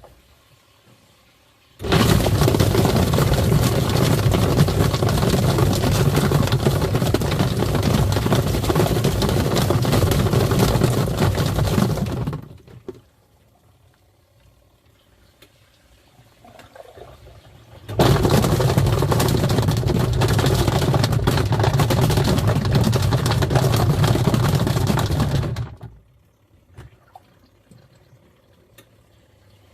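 Twin-tub washing machine's wash tub running, motor hum with water churning. It runs in two stretches, about ten seconds then about eight, each cutting in and out abruptly.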